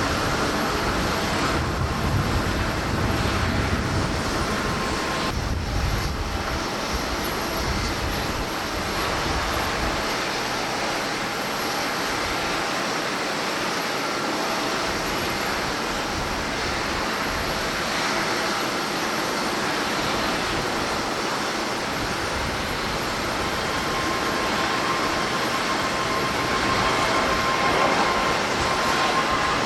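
Jet airliner engine noise, steady and continuous, with gusty wind rumbling on the microphone in the first part; after a brief break about five seconds in, it is a Boeing 737-800's CFM56-7B turbofans on departure, a faint steady whine rising near the end.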